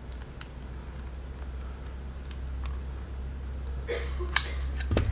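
Faint crinkling and small scattered ticks of a thin plastic sandwich bag as a handheld heat sealer is slid along its edge, with a sharper tick about four and a half seconds in, over a low steady hum.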